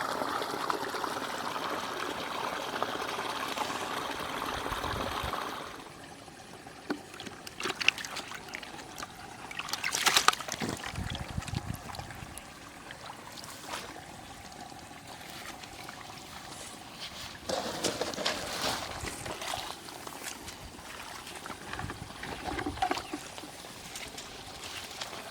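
Water trickling steadily, cutting off abruptly about five seconds in; after that, scattered short knocks and clicks over a quieter background.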